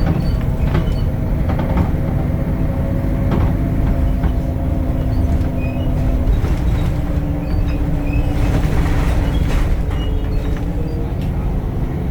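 Temsa Avenue LF 12 city bus running with its DAF Euro 5 diesel engine and ZF gearbox: a steady low rumble with a humming note that steps up in pitch about halfway, over small rattles and knocks. A brief hiss comes about three-quarters of the way through.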